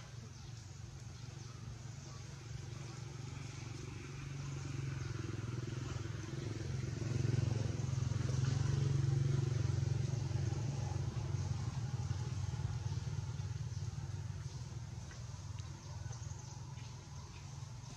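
A motor vehicle's engine passing nearby, a low hum that swells to its loudest about halfway through and then fades away.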